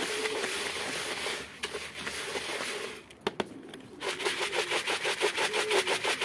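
Dry grain feed mix rustling and sliding inside a plastic bucket as it is shaken and tossed by hand to mix it, with a couple of sharp clicks a little after the middle. In the second half the shaking becomes a quick, even rattle of about five shakes a second.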